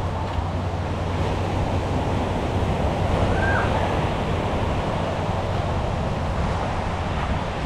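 Steady rush of surf and wind on an open beachfront, over a constant low hum. About three and a half seconds in comes one short high chirp.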